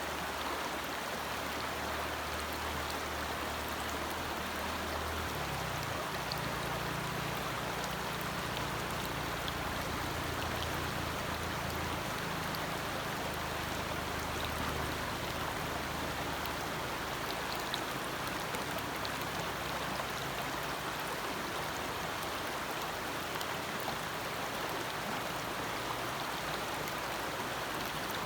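Forest stream flowing: a steady rush of running water with a shifting low burble underneath.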